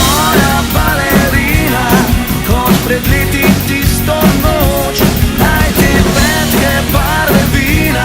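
Pop-rock band music: drums keeping a steady beat under bass and a bending melodic lead line.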